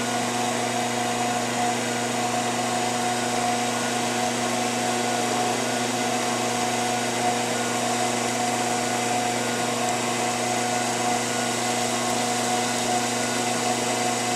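Treadmill's electric motor running, a steady hum with a constant whine that does not change.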